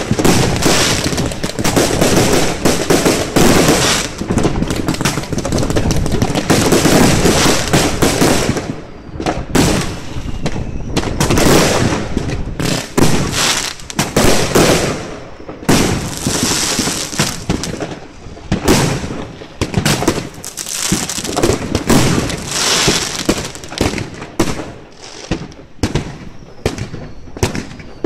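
Fireworks going off in dense, rapid bangs and crackles for about the first eight seconds, then in separate volleys with short lulls between them.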